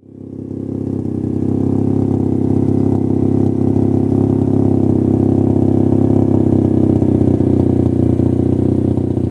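A car engine running at a steady idle with an even, fast pulsing beat, fading in over the first second or two.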